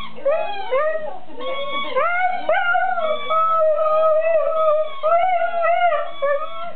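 Siberian husky howling: a run of short rising-and-falling notes, then a long held howl through the middle, breaking into short wavering notes again near the end.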